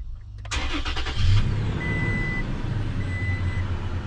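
Pickup truck engine cranking and catching, with a brief rise about a second in, then idling steadily. A high electronic chime from the truck sounds on and off three times over the idle.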